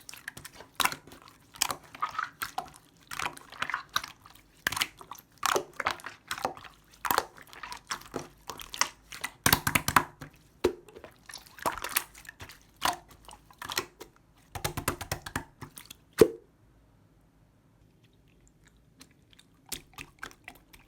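Slime being kneaded and poked by hand: repeated sticky squelches and little air pops, about one or two a second. They stop about sixteen seconds in with one sharp pop, followed by a few faint clicks near the end.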